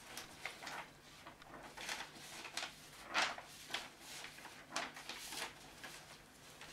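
Sheets of paper rustling and crinkling as they are handled and turned, in a string of short, separate rustles; the loudest comes about three seconds in.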